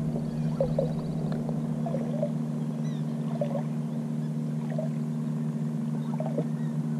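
A boat motor running with a steady low hum, with a few faint short sounds scattered over it.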